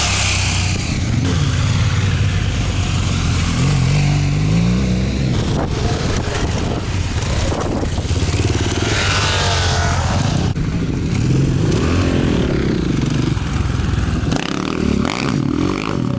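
Yamaha MT-09 motorcycle with an Akrapovic exhaust, its inline three-cylinder engine revving up and down repeatedly while ridden off-road. There is a rising rev about four seconds in, wavering revs in the middle, and a drop in revs near the end.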